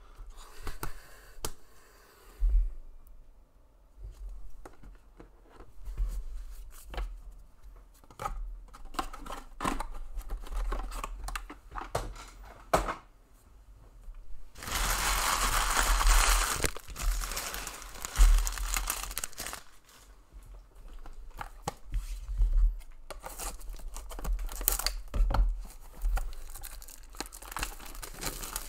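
Plastic wrapping being torn and crinkled, with one long, loud rip about halfway through, among many light taps and clicks of trading cards and plastic card cases handled on a table.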